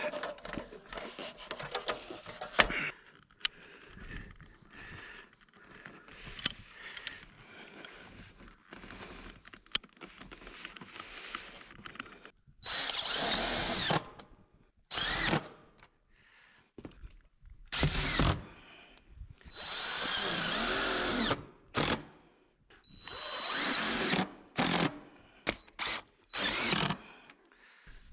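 Cordless drill driving screws through the chimney flashing boot's aluminium clamping strip into the ribbed steel roof, in a series of runs of one to two seconds, with several shorter ones near the end. Light clicks and rustling of the flashing being handled come before the drilling starts, about halfway in.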